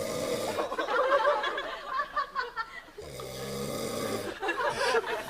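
A man snoring: two long, harsh, rasping snores, the second starting about three seconds in. The snoring has a drill-like buzz.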